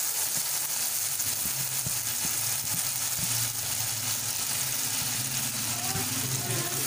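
Marinated chicken in a yogurt spice paste sizzling in hot oil in a pan: a steady frying hiss with a low steady hum underneath.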